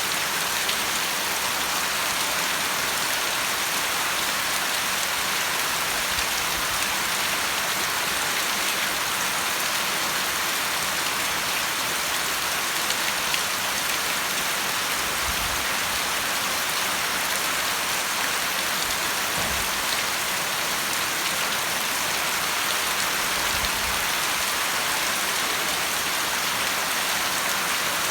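Steady rain falling and pattering on surfaces, an even, unbroken hiss throughout.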